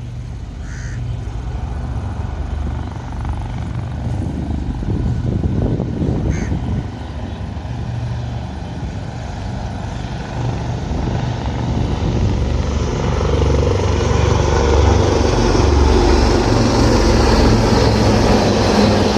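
Low-flying aircraft overhead, a steady deep rumble with a rushing roar that grows louder in the second half as it comes closer.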